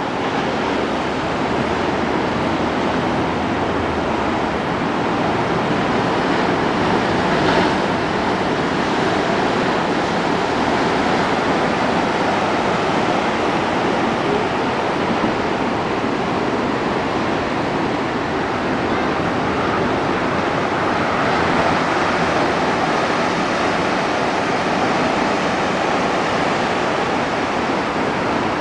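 Heavy storm surf breaking on a sandy beach: a continuous loud rush of waves, with a brief louder surge about seven and a half seconds in.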